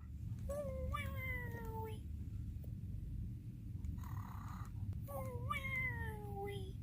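Cartoon snoring sound effect: two long whines that fall in pitch, with a short breathy hiss between them, over a steady low hum.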